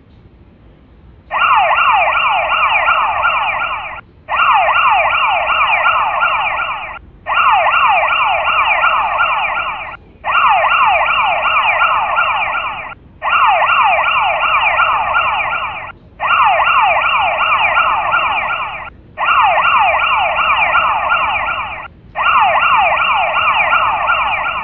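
Electronic siren sounding in eight bursts of about three seconds, each a rapid, quickly repeating falling warble, with brief breaks between them, loud over faint road noise.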